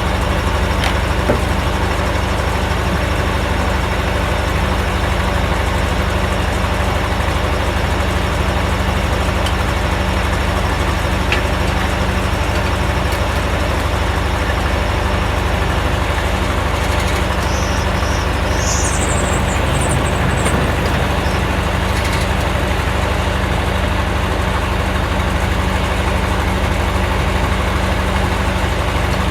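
Engine powering a Corley sawmill, running steadily at one speed with no change in load. A brief high-pitched chirping sound is heard around the middle.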